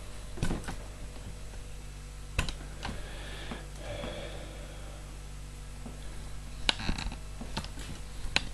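A few scattered light clicks and knocks, several seconds apart with a close pair near the end, over a steady low hum.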